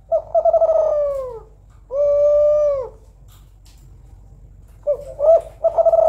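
Female Kelantan-type spotted dove (tekukur) cooing: a long, wavering coo that falls in pitch, then a steadier coo ending about three seconds in. After a pause, a new phrase starts with short notes and another long falling coo.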